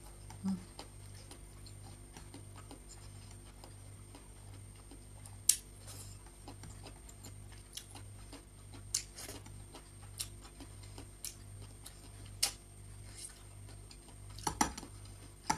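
Quiet eating sounds as rice is picked up by hand from a plate and chewed, with a few sharp clicks, the loudest about five and a half seconds in. A faint low hum pulses evenly underneath.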